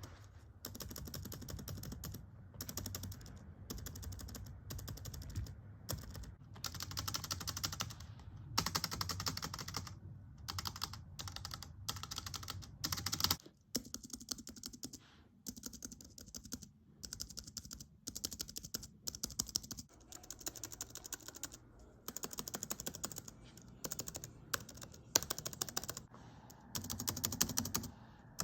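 Spacebars of a series of laptop and keyboard keyboards pressed over and over in quick runs of clicks: an Acer Aspire V5-471, a ThinkPad T43, a Sapac T07-30 keyboard, a 2012 11-inch MacBook Air and a Dell Inspiron 7559 in turn. The tone of the clicking changes at each switch to a new keyboard, about every six or seven seconds.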